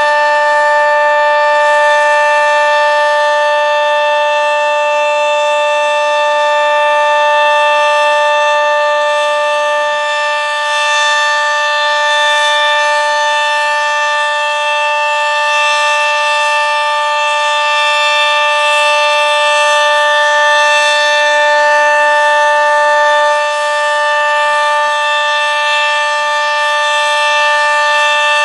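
Sentry 40V2T two-tone outdoor warning siren sounding a steady full alert: a loud, unbroken chord of two held tones. Its loudness dips slightly twice, about thirteen seconds apart.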